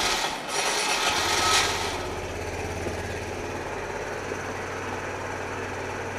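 Kawasaki Z125 Pro's single-cylinder four-stroke engine being started on fresh oil. A loud starting noise with a brief break catches about a second in, then settles into a steady idle.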